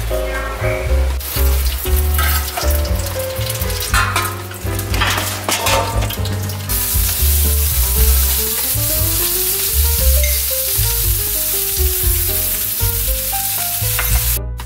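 Thick cheese custard being stirred in a pan on the stove: scraping strokes over a sizzle for the first half or so, then a steady hiss. Background music with a melody over a bass line plays throughout.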